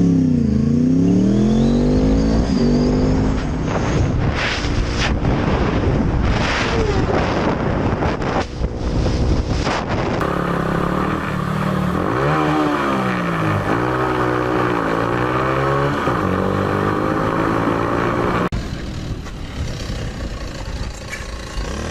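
Motorcycle engines revving, the engine note repeatedly dropping and climbing as the throttle opens and closes. The sound changes abruptly twice, about halfway through and near the end.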